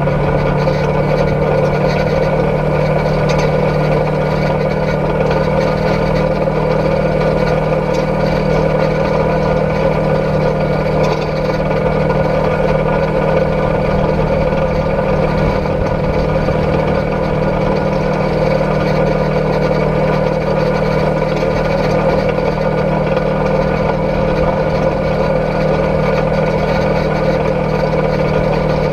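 Polaris RZR XP 1000 side-by-side's parallel-twin engine running steadily while the vehicle drives along a gravel dirt road, the drone holding an even pitch and level throughout.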